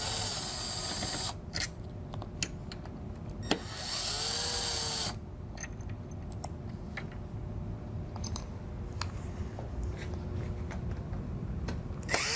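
Cordless drill/driver with a hex bit running in short bursts to back out screws: a whir of about a second at the start, another around four seconds in, and a brief one near the end, each rising then falling in pitch as the motor spins up and winds down. A few light clicks in between.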